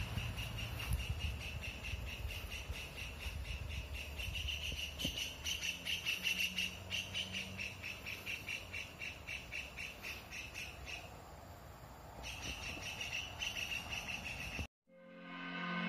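Insects chirring outdoors: a steady, fast-pulsing high-pitched buzz that stops about eleven seconds in and starts again a second later. It cuts off suddenly near the end, where music begins.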